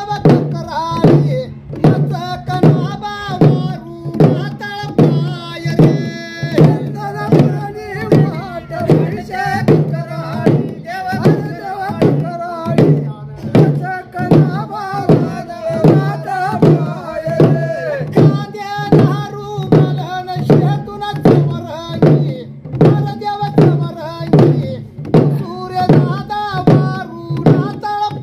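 A male voice singing an Ahirani devotional folk song to a row of rope-laced drums beaten with sticks in a steady rhythm.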